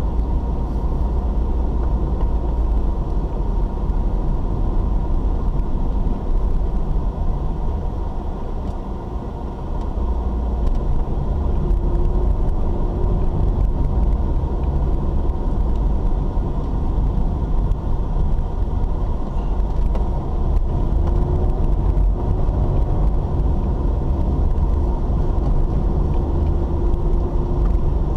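Steady low rumble of a car driving on a paved road, heard from inside the cabin, easing slightly for a moment about nine seconds in.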